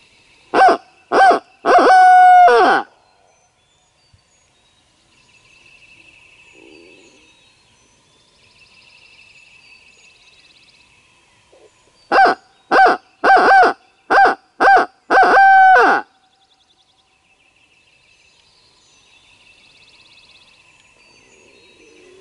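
Loud barred-owl hooting from a turkey hunter's owl locator call: a run of three hoots, then about ten seconds later a run of six, each run ending in a longer drawn-out hoot that drops in pitch. Blown at dawn to shock a gobbler into gobbling and give away where he is.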